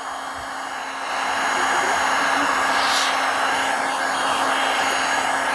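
Hot-air blower running steadily with a constant hum, heating a smartphone's glass screen before it is pried off. It is a little quieter for the first second and a half, then steady.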